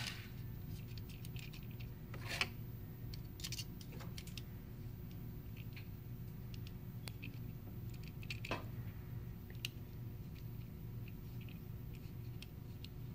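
Small clicks and ticks of a hex key turning screws into a laser mount and of the mount being handled, with a couple of sharper clicks about two and a half and eight and a half seconds in, over a faint steady hum.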